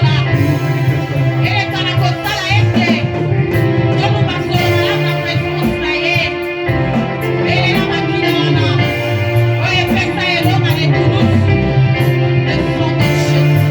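Worship music with singing over a steady bass and held keyboard chords.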